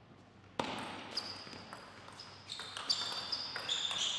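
Table tennis rally: the ball clicking off the bats and table in quick succession, starting about half a second in, with players' shoes squeaking on the court floor.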